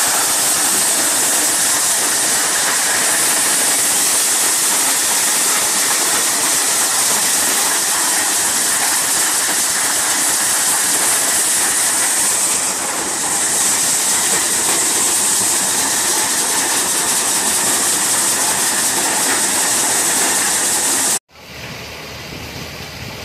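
Tractor-driven multi-crop thresher running: a loud, steady rushing hiss, strongest in the high range. About twenty-one seconds in it cuts off abruptly, and a quieter, lower steady running of an engine-driven thresher takes over.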